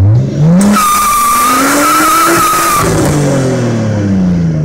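Nissan Skyline R34's RB25DET NEO turbocharged straight-six revved hard in a burnout, the rear tyres screeching for about two seconds as the revs climb. Then the squeal cuts off and the revs fall away.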